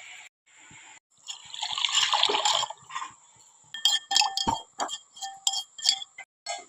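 A short rushing, pouring-like noise, then a quick uneven run of sharp metallic clinks that ring briefly: a metal spoon knocking against a steel cooking pot while cooking.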